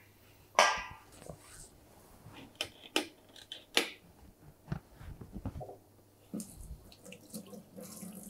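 A few scattered knocks and clatters, the loudest just under a second in. Then, about six seconds in, a kitchen tap is turned on and runs steadily into the sink.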